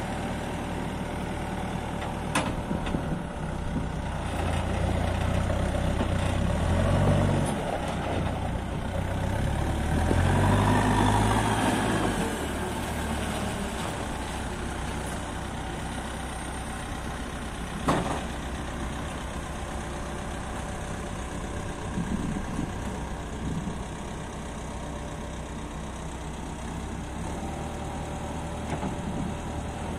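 Terex TLB890PS backhoe loader's diesel engine running, its note rising and getting louder twice in the first dozen seconds before settling to a steady idle. A single sharp knock comes about 18 seconds in.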